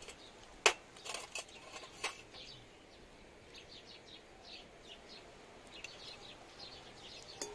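A few sharp clinks of small dishes and walnut pieces being handled, the loudest under a second in, followed by faint chirps of small birds in the background.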